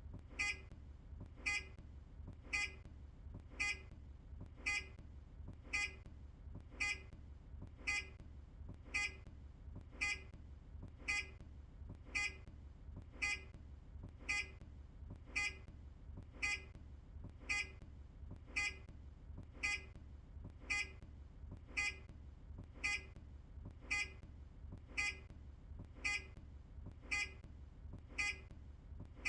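Indicator (turn-signal) beeper of an earlier Optare Solo bus, a short electronic beep repeating steadily about once a second, over a steady low hum.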